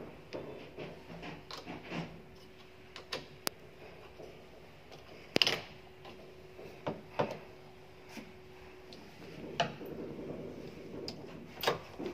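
Scattered metal clicks and knocks of lock hardware being handled as the trim plate is fitted back onto an armored steel door's lock, the loudest knock about five seconds in.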